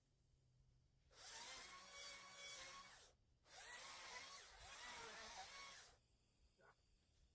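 Ryobi 40-volt battery electric chainsaw running in two bursts of about two seconds each with a short break between. The motor's whine dips and recovers in pitch as it cuts through saplings.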